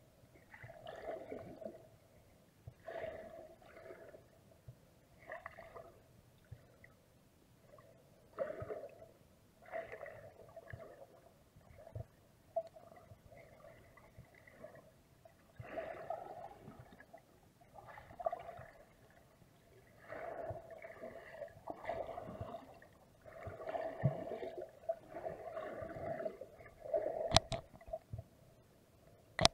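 Muffled underwater water noise picked up through an action camera's waterproof housing: irregular gurgling surges every second or two as the water moves. A sharp click comes near the end.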